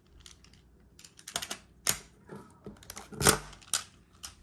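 Magnetic building tiles clicking and clacking against each other as they are handled and snapped together: irregular sharp clicks, the loudest a little over three seconds in.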